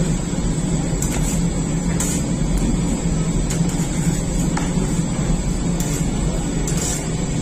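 Steady machine drone of a rotating-tray bread oven running, with a few light clicks of a metal scraper against the tray as baked breads are lifted off.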